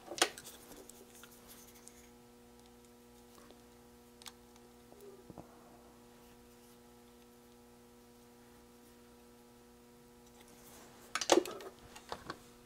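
Sharp clicks and taps of small parts and hand tools being handled on a workbench while a circuit-board kit is put together: one loud click at the start, a few faint ones in the middle and a cluster of loud clicks near the end. A steady faint electrical hum lies underneath.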